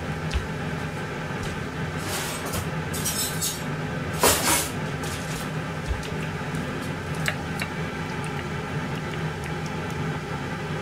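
Steady machine hum in a kitchen, with a few short hissing, rustling noises and knocks about two to five seconds in, the loudest near four seconds.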